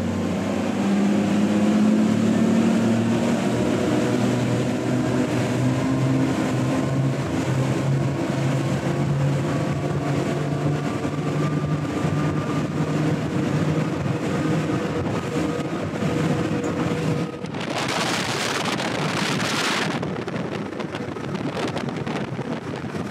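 Twin 300 hp Mercury outboards on a Contender 30ST accelerating at full throttle from slow speed to about 50 knots, the engine note climbing steadily in pitch, with hull and wind noise under it. About three-quarters of the way through, a loud rush of wind noise lasts about two seconds.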